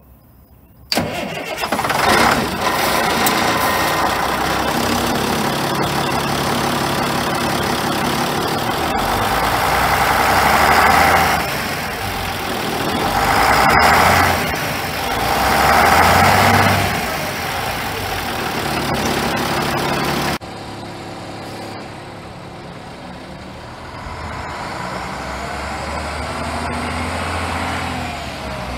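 1998 International 4900 pump truck's diesel engine starting suddenly about a second in and idling, then revved three times in quick succession. After a cut about two-thirds of the way through, the truck's engine is heard more quietly as the truck drives past, growing louder near the end.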